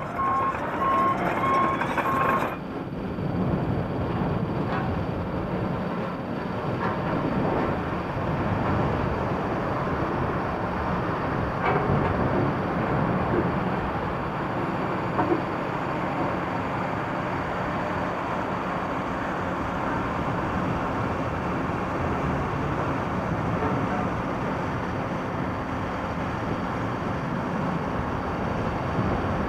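Mobility scooter's reversing beeper sounding a quick run of beeps at one pitch for the first couple of seconds, then stopping. The scooter then drives on, with a steady motor hum under continuous tyre noise.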